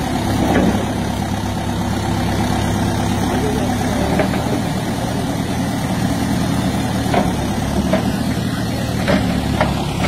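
Diesel engine of a Terex TLB 740S backhoe loader running steadily, with a few short faint sounds over it.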